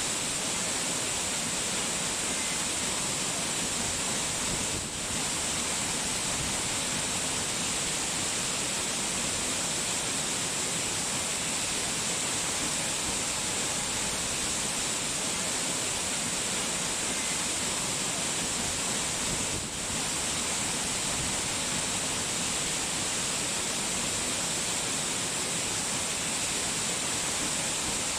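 Steady rushing noise of falling water, even and unbroken, with a bright hiss on top; it dips briefly twice.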